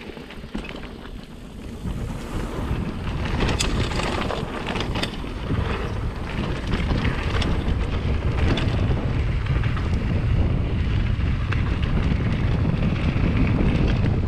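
Wind buffeting the microphone of a mountain bike's camera as the bike rolls at speed down a dirt trail, with the rumble of the tyres on dirt. A few sharp clacks of the bike rattling over bumps come about four seconds in.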